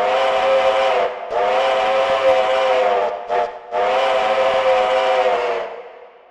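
Steam locomotive chime whistle, several notes sounding together, blown in the grade-crossing pattern: long, long, short, long. The last blast trails away near the end.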